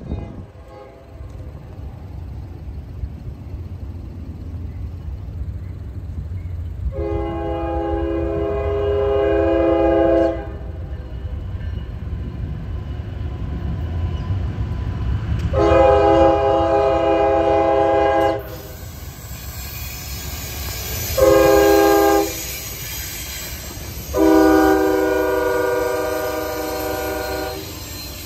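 Norfolk Southern freight locomotive horn sounding the grade-crossing signal (long, long, short, long) as the train approaches a road crossing. Beneath it is the low rumble of the approaching locomotives, growing louder.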